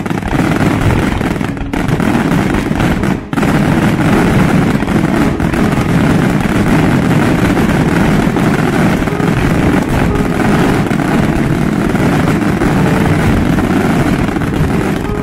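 Aerial fireworks display: a rapid, continuous barrage of shell bursts and crackle running together into a loud, dense rumble, with a brief lull about three seconds in.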